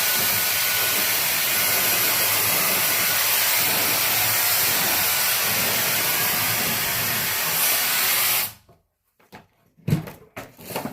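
Shark hair dryer blowing steadily, switched off about eight and a half seconds in, followed by a few light knocks.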